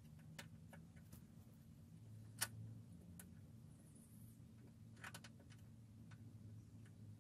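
Scattered small clicks and taps from hand work on a car fender mirror mount being fitted, with the sharpest click about two seconds in and a quick cluster near five seconds. A low steady hum runs underneath.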